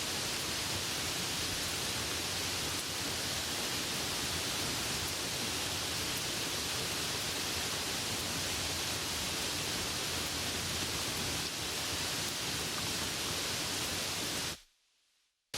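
Soft rain falling, a steady even hiss. Near the end it cuts out suddenly for about a second, then comes back a little quieter.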